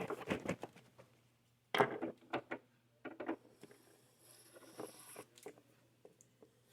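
Small clicks, taps and rustles of sewing thread and sewing-machine parts being handled, coming in several short clusters with a faint steady low hum underneath.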